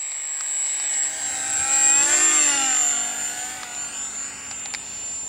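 Twin 50mm electric ducted fans of a foam RC Boeing 757 model whining steadily as it flies past low on its landing approach. The pitch rises and falls as it passes, loudest about two seconds in, then it fades.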